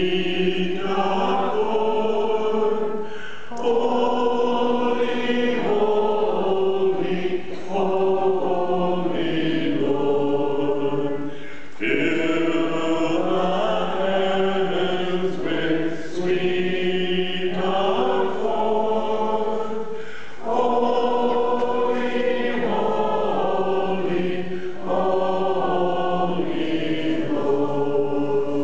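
Church choir singing a hymn in long phrases, with brief pauses between them.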